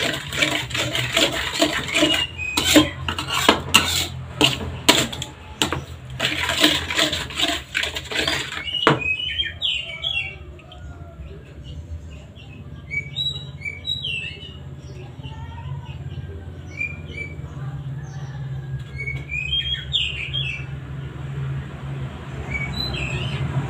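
Metal spatula stirring and scraping in a wok, a fast run of clanks and scrapes for about the first nine seconds. Then the stirring stops and birds chirp in the background over a low steady hum.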